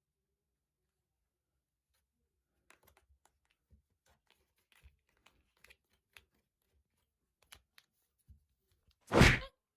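Faint scattered clicks and light rustling, then one loud, short burst of noise, like a bump or a brush against the microphone, near the end.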